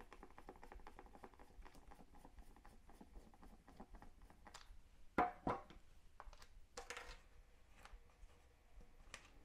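Faint ticking and scratching of a Phillips screwdriver turning a screw out of a multimeter's plastic back case, then a couple of sharper clicks and a short rustle as the screw comes free and the case is handled.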